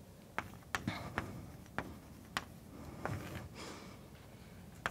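Chalk writing on a blackboard: a scattering of sharp, uneven chalk taps as letters are struck onto the slate.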